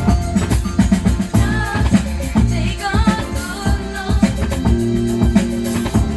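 Vinyl record of a disco-funk song playing: a singing voice over a steady drum beat and bass line.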